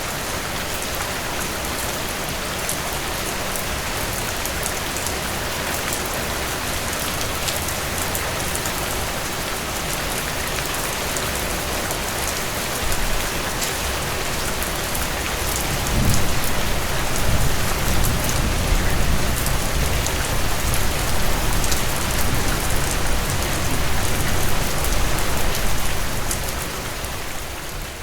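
Steady rain falling, with many scattered drop ticks over an even hiss. About halfway through, a loud, deep rumble joins and carries on, then the sound fades out near the end.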